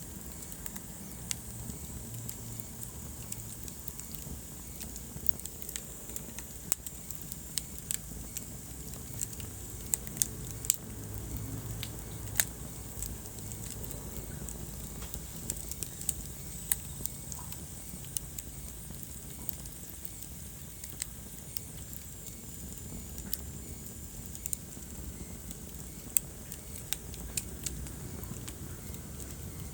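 Wood fire burning in a fireplace: a low steady rumble and hiss with irregular crackles and sharp pops of the burning logs, a few louder pops scattered through.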